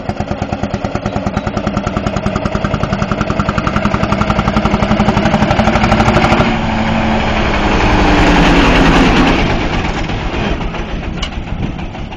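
Vintage tractor engine running with a rapid, even exhaust beat that grows louder as the tractor approaches. About six and a half seconds in, the beat blurs into a louder rush as it passes close by, then fades as it moves off.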